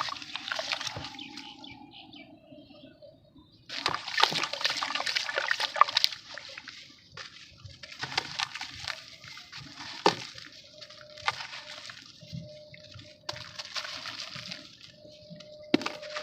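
Gritty sand-cement shapes crumbling in water, in several bursts of splashing, crackling fizz with quieter gaps between.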